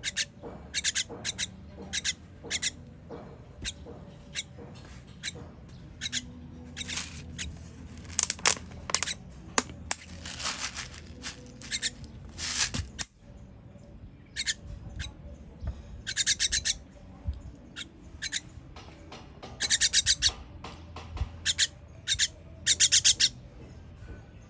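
Baby birds begging to be fed: short, high-pitched chirps repeated in quick series, with longer rapid chirping runs every few seconds.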